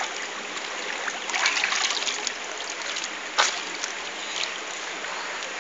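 Shallow river water running over rocks in a steady rush, with a few small splashes and one short, sharp sound about three and a half seconds in.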